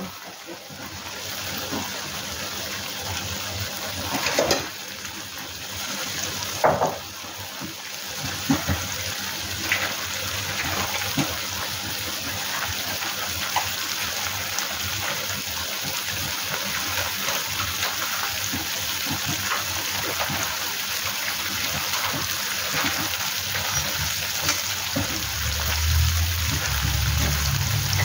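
Sambal tumis chili paste sizzling and bubbling in a wok, with a metal spatula scraping and knocking against the wok a few times. A low rumble comes in near the end.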